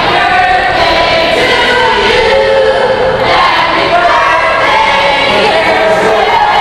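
A crowd of spectators shouting and cheering at once in an indoor pool hall, a dense, steady wall of many voices.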